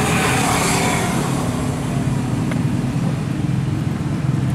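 Steady low drone of a running engine, with a brief hiss in the first second.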